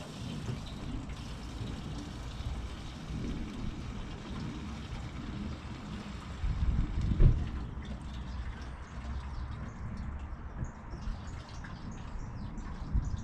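Premix petrol (two-stroke fuel) being poured, a steady trickle, with one louder thump about seven seconds in.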